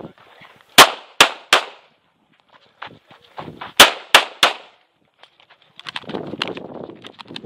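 Tanfoglio Stock 2 Xtreme 9mm pistol, loaded with 115-grain Winchester factory ammunition, fired in two quick strings of three shots each: one about a second in and another about four seconds in.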